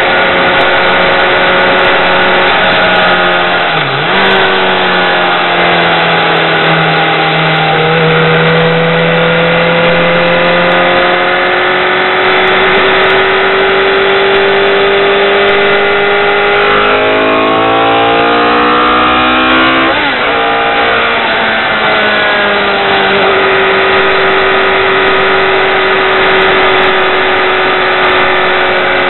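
BMW K1200R motorcycle's inline-four engine running at road speed, its pitch sinking and climbing with the throttle, over a steady rush of wind on the helmet microphone. About seventeen seconds in, the revs swing up and down quickly several times, then drop and settle into an even run.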